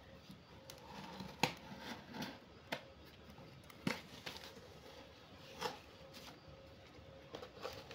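A knife blade slitting packing tape along the seams of a cardboard box: faint, short scrapes and sharp ticks a second or so apart.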